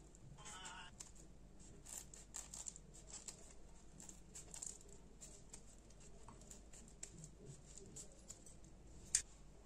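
Kitchen scissors snipping through a crusty bread roll: faint, irregular crunching cuts of the crust, with bread cubes dropping into the bowl and one sharper click near the end.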